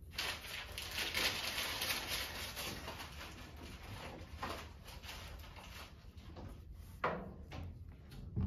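Mechanical pencil scratching across drafting paper while lettering, a scratchy hiss loudest in the first few seconds and lighter after. A sharp knock about seven seconds in and another at the very end.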